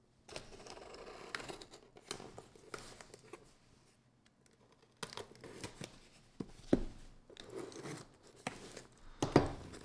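Folding knife blade slicing through the packing tape on a cardboard shipping box, with faint scraping and tearing in short passes. There is a pause of about a second and a half near the middle, and a few sharper clicks in the second half.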